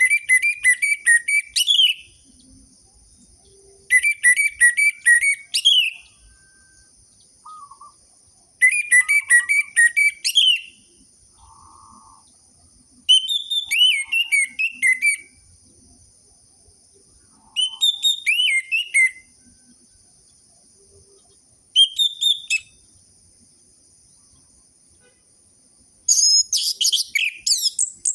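Orange-headed thrush singing in seven short bursts of a second or two each, every burst a fast run of repeated whistled notes, with pauses of a few seconds between them. A faint steady high-pitched tone runs underneath.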